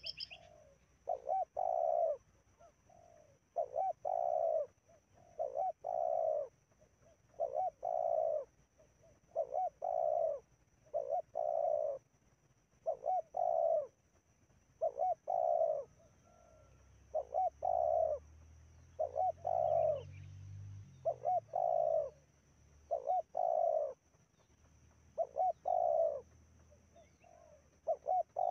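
Spotted dove cooing over and over, a stuttering two-part coo ending in a longer held note, repeated about every one and a half seconds.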